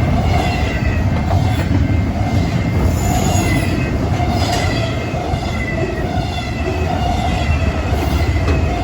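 A BNSF intermodal freight train's cars rolling past at speed: a steady, loud rumble of steel wheels on the rails, with wavering squeals from the wheels running over it.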